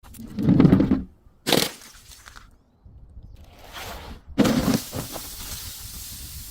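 Something crunchy being crushed and breaking: a heavy crunch about half a second in, a sharp crack at about a second and a half, and another crack a little past four seconds, followed by softer crackling.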